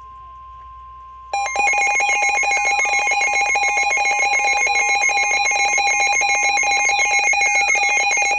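NOAA Weather Radio warning alarm tone, a steady single tone, joined about a second in by a weather radio receiver's loud, rapidly pulsing electronic alarm with falling sweeps, set off by the warning alert.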